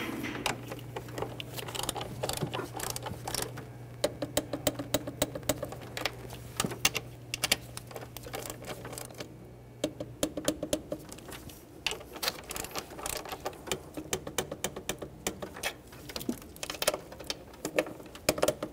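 Ratchet wrench clicking in quick runs, with short pauses, as the throttle body's 10 mm mounting bolts are run down and tightened. A low steady hum runs underneath and stops about ten seconds in.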